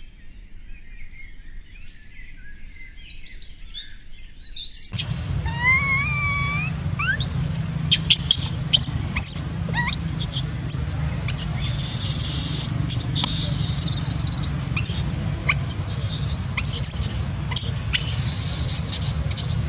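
Baby long-tailed macaque crying: many short, high-pitched squeals and screeches, starting about five seconds in, the distress cries of an infant wanting to nurse.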